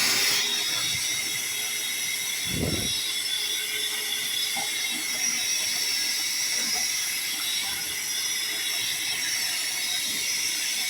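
Steady hissing noise with a faint high whine, even throughout, with one short low thud about two and a half seconds in.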